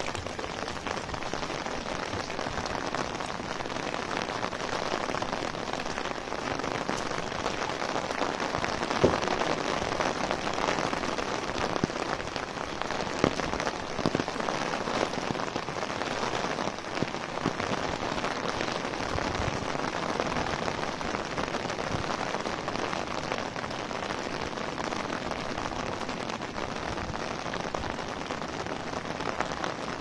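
Steady rain pattering on an umbrella overhead and on the wet ground around it, with a few sharper single ticks, the loudest about nine seconds in.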